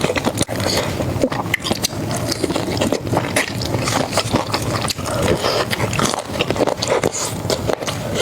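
Close-miked chewing and crunching of crispy fried food, with dense wet crackles and clicks throughout.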